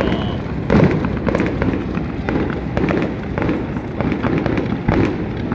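Fireworks display: a dense run of pops and crackles, with heavier booms about a second in and again near the end.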